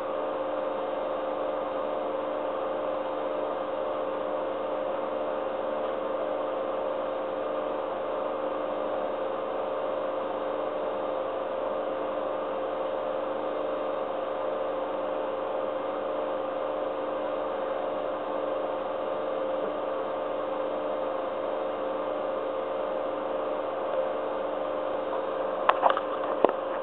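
A steady hum with a hiss and a few constant tones, unchanging throughout. A few sharp clicks come near the end.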